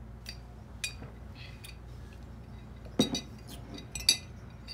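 A metal straw clinking against a glass mason jar, several short sharp clinks, the loudest about three and four seconds in.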